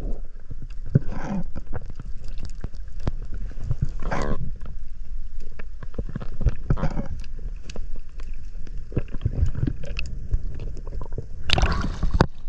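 Underwater sound through an action camera's housing: a low water rumble with scattered clicks and bubbling, then a loud rush of water near the end as the camera breaks the surface.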